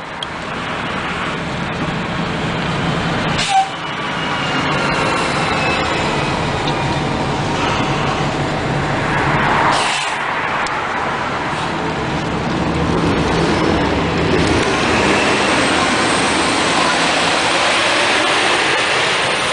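Nova Bus RTS-06 diesel transit bus pulling out and driving past close by, its engine running throughout and loudest as it passes about ten seconds in. A short sharp sound about three and a half seconds in.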